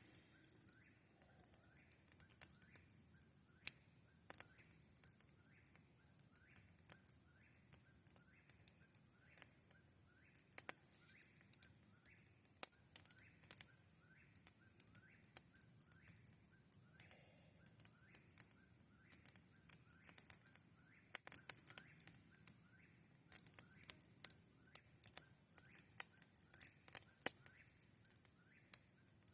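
Campfire with freshly added kindling crackling, with sharp, irregular snaps and pops. Underneath are a steady high tone and a faint chirp repeating about twice a second.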